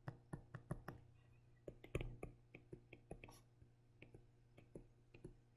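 Faint, irregular clicks and taps of a stylus writing on a tablet screen, several a second, over a low steady hum.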